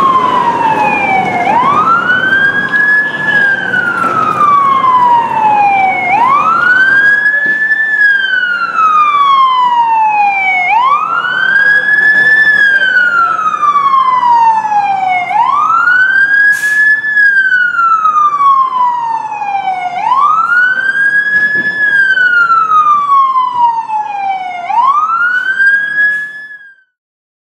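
Fire engine siren wailing, its pitch rising quickly and falling slowly, about six sweeps roughly every four and a half seconds, over a low engine rumble. It cuts off abruptly near the end.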